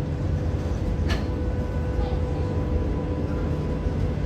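Slow passenger train pulled by an electric locomotive, running on the line: a steady low rumble with a faint steady hum, and one sharp click about a second in.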